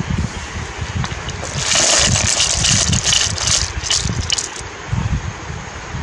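Boiled snails and crabs with their hot water poured from the pot into a woven basket: a gush of water with shells clattering for about three seconds, starting near two seconds in. Wind buffets the microphone throughout.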